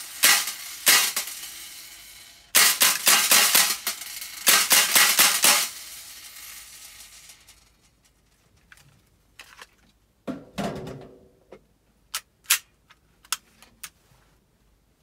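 MGC gas-blowback Glock 17 airsoft pistol with a silencer fitted, firing: two sharp metallic cracks, then a rapid string of shots for about three seconds, each with a short ringing tail. Scattered light clicks and a dull knock follow.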